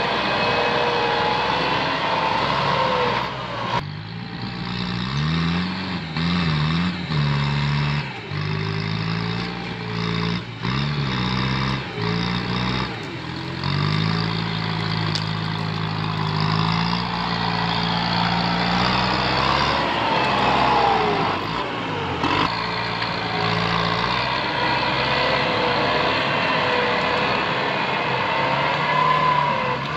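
Kubota tractor's diesel engine working under load as its front blade pushes brush. The engine note rises and falls again and again, with a few abrupt breaks.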